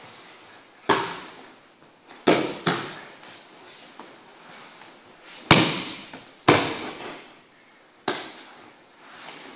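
A person falling onto padded martial-arts mats in aikido breakfalls, bodies and hands slapping down in six sharp impacts, each echoing briefly in a large hall; the loudest is about halfway through.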